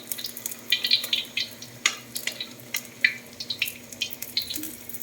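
Battered tempeh mendoan frying in hot oil: a steady sizzle with many irregular crackles and pops.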